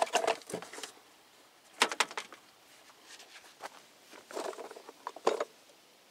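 Plastic air cleaner box being lifted out and handled: a few scattered knocks and rattles of hollow plastic, about two seconds in and again near the end as it is set down.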